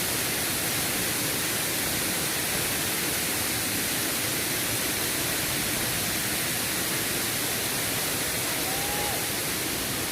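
Waterfall rushing steadily, a constant even noise of falling water.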